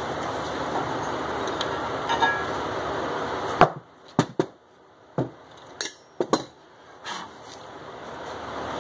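Steady background noise for the first few seconds, which drops away abruptly. Then comes a string of about eight sharp knocks and clunks of a steel C-clamp and a wooden block being taken off the axle housing and set down on the workbench.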